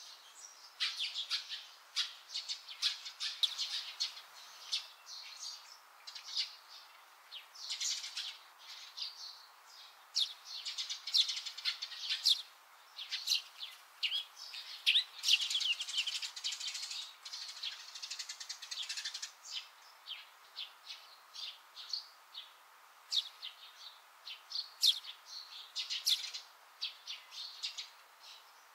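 Small birds chirping: many quick, high chirps in busy clusters, with a few short lulls between them.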